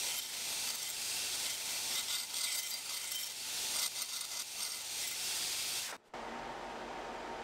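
1084 high-carbon steel knife blank being profiled on a 36-grit belt on a 2x72 belt grinder: a harsh grinding hiss that swells and eases as the steel is worked against the belt. About six seconds in it cuts off abruptly, and a steadier, quieter hiss with a low hum follows.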